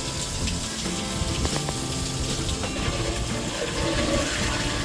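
Water pouring and splashing steadily as soil is washed off a freshly potted brinjal plant and its bucket, with background music.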